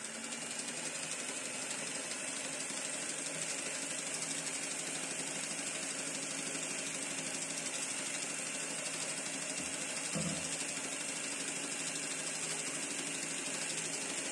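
Electric hand mixer running at a steady speed, its beaters whisking spinach purée into cake batter.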